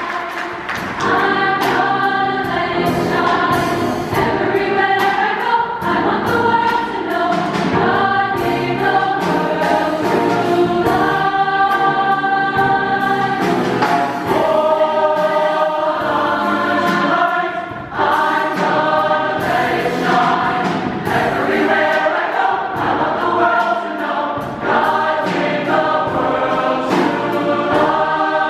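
Large mixed high-school choir singing a gospel-style choral anthem in full harmony, many voices holding sustained chords together, with one brief dip in loudness about two-thirds of the way through.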